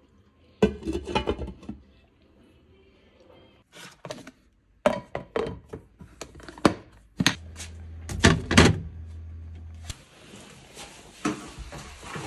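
A series of knocks and thunks, as of objects being handled and set down, with a low steady hum for a few seconds in the middle and an even hiss toward the end.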